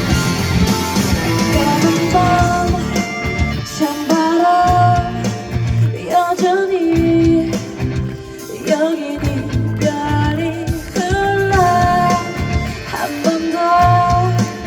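Live pop-rock band music: guitar and drums under a sung melody line that bends and wavers in pitch.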